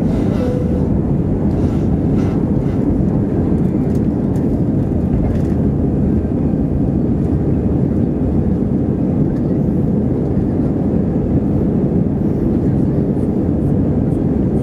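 Steady, loud cabin noise of an Airbus A320 climbing out just after takeoff: engine and airflow noise heard from inside the cabin, heavy in the low end and unbroken.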